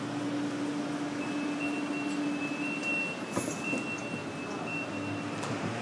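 Houston METRORail light rail train humming steadily, with a thin high whine that comes in about a second in and stops shortly before the end. A brief knock sounds about halfway through.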